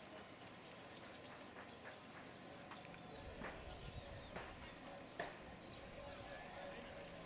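Steady high-pitched insect buzz, with a few faint knocks in the middle.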